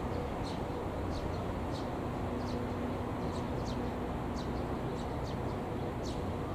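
Small songbird calling: short, high chirps that slide downward, repeated about ten times at uneven intervals, over a steady low background hum.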